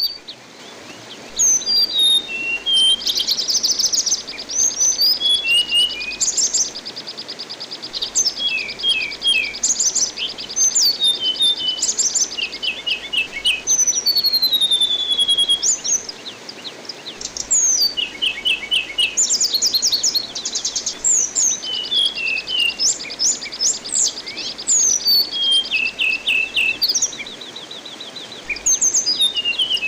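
Anis binbin thrush singing a varied song of sharp whistled notes and pitch glides, broken by long, very fast trills. A steady hiss of running water sits underneath.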